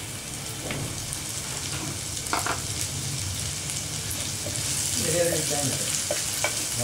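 Chopped ginger and green chillies sizzling in hot oil in a nonstick frying pan, stirred with a wooden spatula that clicks against the pan now and then. The sizzling grows louder in the second half.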